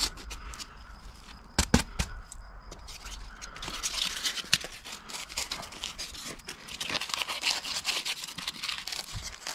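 Polystyrene facade board being pressed and worked into place against a brick wall: a few sharp knocks, then from about three and a half seconds in a steady run of fine scraping and crackling.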